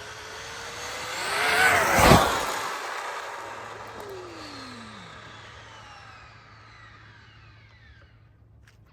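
Traxxas Maxx Slash RC truck with hardened-steel 27/44 speed gearing running flat out past the microphone. Its high electric motor and gear whine climbs toward a loud peak about two seconds in, then drops sharply in pitch and fades away as it speeds off.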